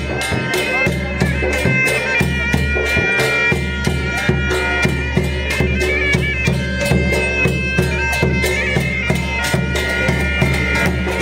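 Traditional folk music: a reed wind instrument holding sustained high notes over a fast, steady drumbeat.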